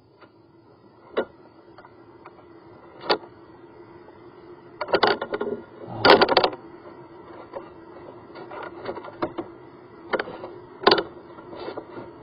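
Drain inspection camera and its cable knocking and scraping inside a sink drain pipe: sharp knocks about a second in and three seconds in, a cluster from about five to six and a half seconds, and another near eleven seconds, over a steady low hum.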